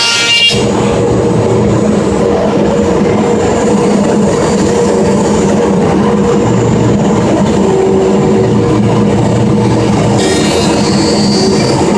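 CNC router cutting a handrail profile in wood. About half a second in, a high whine gives way to a loud, steady cutting noise with a hum underneath, and the tone shifts slightly as the cut goes on.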